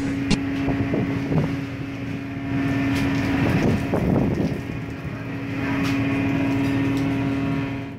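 Steady hum of a fishing vessel's engine and deck machinery, one constant tone, under wind and sea noise, with a few sharp clicks and knocks.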